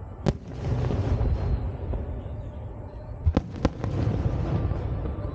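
Aerial firework shells bursting: one sharp bang about a quarter second in, then two more close together a little past three seconds, each followed by a long low rumble.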